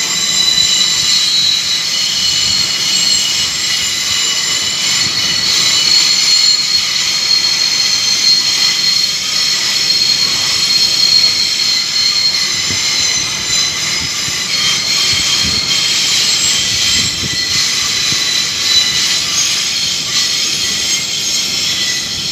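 Class 800 train at close range, giving off a loud, steady high-pitched whine of several tones at once.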